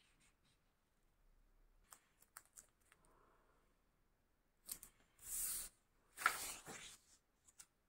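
A strip of masking tape being laid across the seam of two paper pattern sheets and rubbed down: a few light paper clicks, then two louder scraping rustles about a second apart in the second half.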